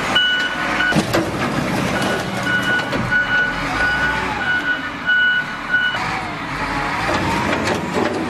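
Reversing alarm of a heavy demolition machine beeping in a repeated series of high beeps, over running engine noise and a few sharp knocks; the beeping stops about six seconds in.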